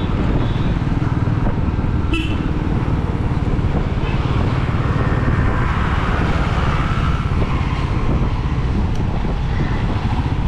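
Royal Enfield Meteor 350's single-cylinder engine running steadily while the motorcycle cruises, with road and traffic noise around it. A vehicle horn gives a short toot about two seconds in.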